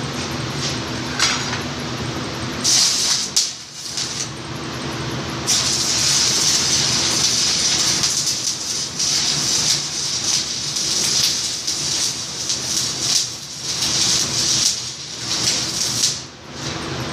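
Electric arc welding: the arc crackles and hisses, struck briefly about three seconds in, then burning steadily from about five seconds in until it is broken off near the end. A steady low hum runs underneath.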